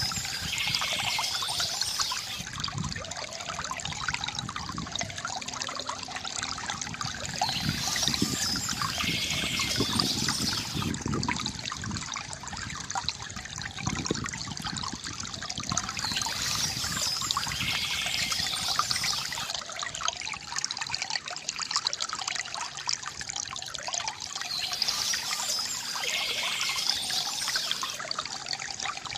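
Small stream trickling and babbling steadily over stones. A brighter, higher rush of water returns about every eight to nine seconds.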